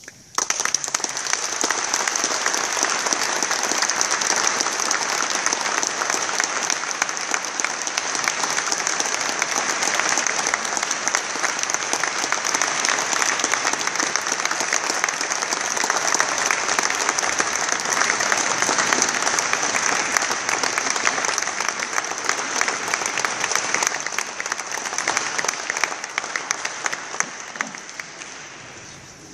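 Audience applauding, the clapping starting abruptly about half a second in and dying away over the last few seconds.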